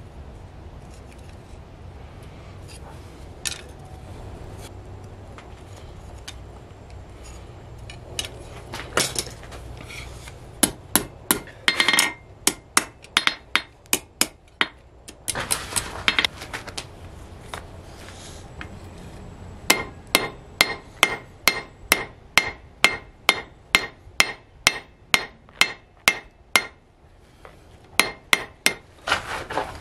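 Blacksmith's hand hammer striking hot steel on an anvil: a few single blows, then runs of sharp metallic strikes at about three a second, broken by short pauses.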